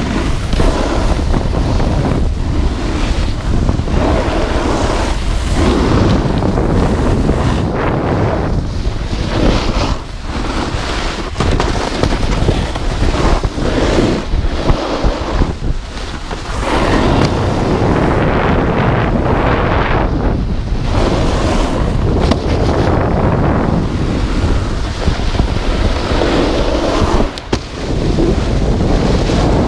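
Loud wind rush on an action camera's microphone while riding down a groomed snow slope, mixed with the hiss of board edges sliding over snow. The noise dips briefly a few times.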